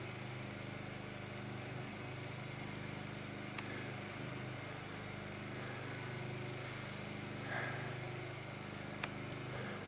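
A steady low mechanical hum, like a motor running, with a couple of faint clicks.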